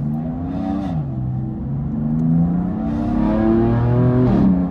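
BMW M4 GTS's twin-turbo straight-six accelerating hard, heard from inside the cabin. The engine note climbs, drops sharply at a gear change about a second in, then climbs and grows louder for about three seconds before dropping again near the end.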